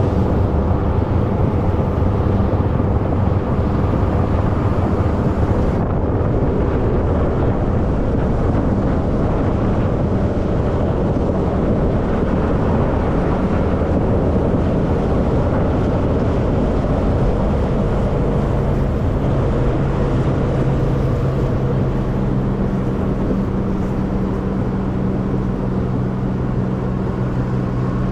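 Boat engine running at speed with the hull planing across choppy water, wind rushing over the microphone and water hissing past. About two-thirds of the way in, a stronger steady engine hum comes up.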